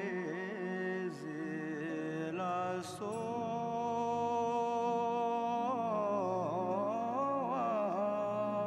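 Background music: a chanted mantra sung in long held notes over a steady drone, the voice bending and wavering in pitch near the end.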